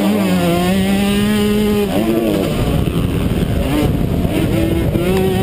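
Two-stroke 125cc motocross bike engine at high revs on the track, held steady for about two seconds, dropping off about two seconds in, then revving back up near the end.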